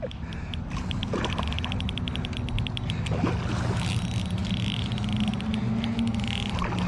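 An engine runs steadily with a low hum. Over it comes a rapid, even run of clicks from a spinning reel being cranked during the retrieve.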